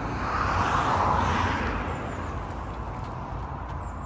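A car passing on the adjacent road: its tyre and engine noise swells to a peak about a second in, then fades away, over a steady low rumble.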